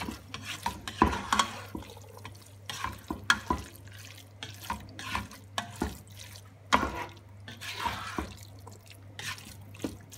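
Black plastic spoon stirring thick minced-beef bolognese sauce in a non-stick pot: irregular wet squelches and scrapes, with sharper knocks of the spoon against the pot now and then.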